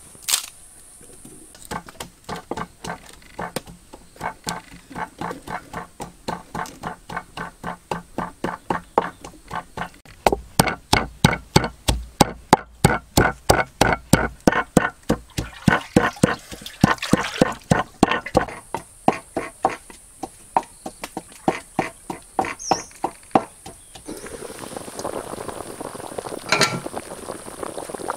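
Rapid rhythmic chopping with a knife on a cutting board, about three to four strokes a second, with heavier thumping strokes in the middle, stopping about four seconds before the end. A steady high hiss runs behind it.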